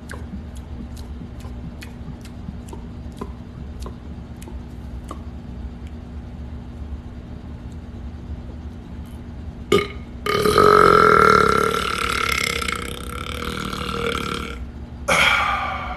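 A man's long, loud, drawn-out burp lasting about four seconds, beginning about ten seconds in, followed by a short second burst near the end. Before it there is a steady low hum with faint regular clicks over the first few seconds.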